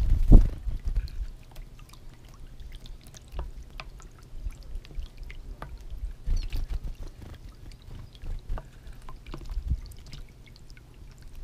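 Small bubbler fountain in a glazed pot splashing and trickling steadily. Low thumps, the loudest just after the start, and a couple of faint high chirps about six seconds in.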